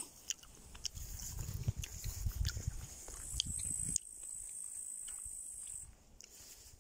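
A steady high insect chirr, grasshoppers or crickets in summer grass, that breaks off briefly about six seconds in. Over it come footsteps and rustling through garden plants with scattered light clicks, loudest in the first half.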